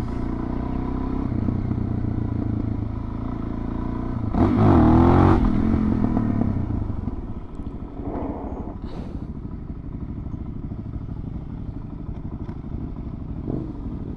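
Suzuki DR-Z400 single-cylinder four-stroke engine running on the move. It revs up hard about four seconds in, then drops back to a quieter, lower run.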